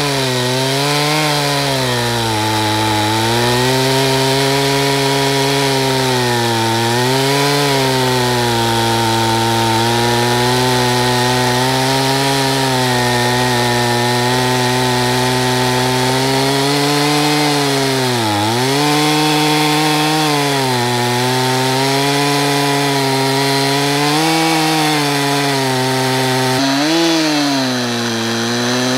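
Stihl MS362 chainsaw running at full throttle while ripping a log lengthwise on a chainsaw-mill jig, the chain cutting steadily through the wood. The engine pitch wavers as it bogs under load and recovers, dipping most deeply about two-thirds of the way through and again near the end.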